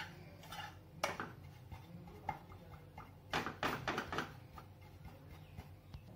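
Spatula scraping and pressing crumbly roasting gram flour in a non-stick pan, breaking up its lumps: faint scattered scrapes and taps, busiest a little past halfway.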